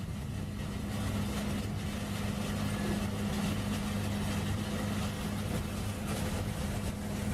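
Heavy machinery running with a steady, unchanging low hum over a constant noise.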